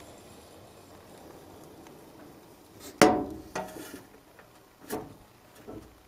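A few short knocks and clunks from handling parts of a gas furnace cabinet, the loudest about three seconds in, then three lighter ones. A faint hum fades away over the first couple of seconds.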